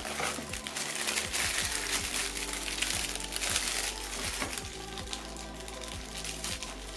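Background music with a steady beat, over the rustle and crinkle of packaging being handled, loudest in the first few seconds, with small clicks and taps throughout.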